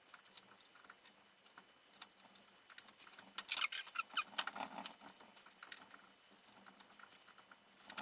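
Light hand-chiselling of plywood: a rapid, irregular run of small clicks and scrapes as the chisel pares away a veneer layer, busiest a few seconds in.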